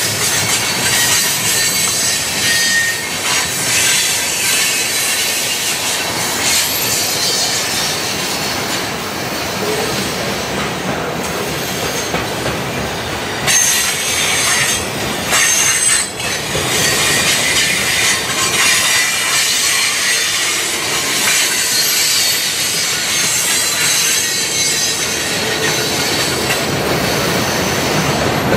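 Freight cars rolling past at close range: steel wheels running on the rails, with steady clicking over the rail joints and brief high-pitched wheel squeals. A few sharper clanks come about halfway through.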